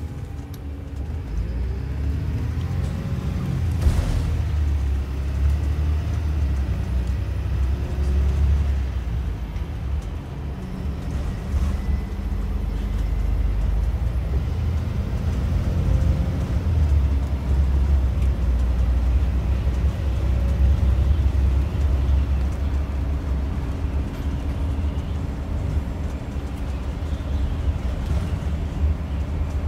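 A single-deck bus's engine and road noise heard inside the passenger saloon, a steady low rumble that grows louder in the first seconds as the bus gets under way, with a single knock about four seconds in.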